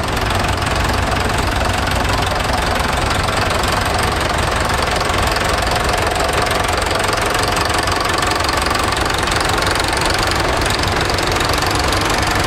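Several vintage tractors, including a blue Fordson and a white David Brown, driving slowly past in a line, their engines running steadily at low revs.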